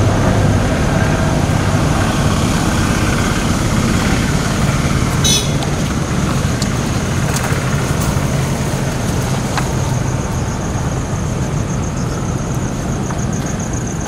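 A motorbike engine running steadily under way, with a constant low hum and rumble as it rides along a rough, muddy dirt track.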